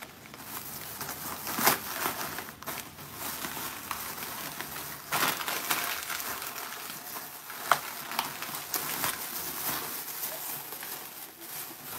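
Plastic carryout bag rustling and crinkling as it is handled, with a few sharper crackles.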